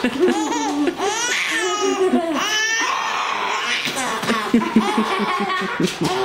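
Baby laughing in a long fit: high-pitched squeals that slide up and down, with quick repeated pulses of laughter.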